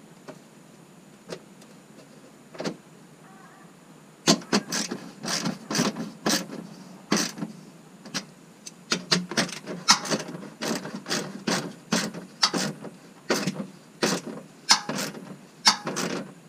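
A plastic air box and fender liner being pushed, knocked and shifted into place by hand. After a few isolated clicks, a dense run of irregular plastic knocks, clicks and scrapes starts about four seconds in.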